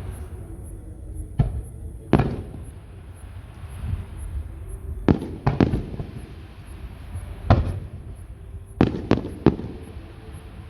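Fireworks bursting: about nine sharp bangs, some alone and some in quick runs of two or three, each followed by a short rumbling echo, over a steady low background rumble.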